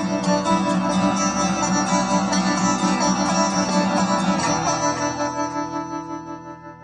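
Guitar music: quick, evenly repeated strums over held, ringing notes, fading out over the last two seconds.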